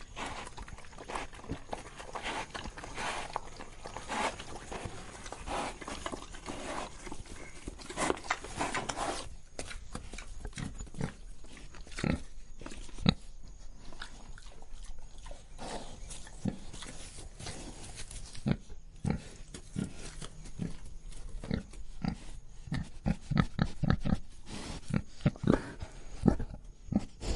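A pig breathing: repeated breathy huffs for the first several seconds, then a run of short, sharp low sounds from the pig that come thick and fast near the end.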